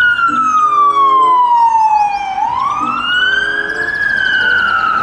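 Ambulance siren in a slow wail. Its tone falls steadily for a couple of seconds, climbs again, and begins to fall once more near the end.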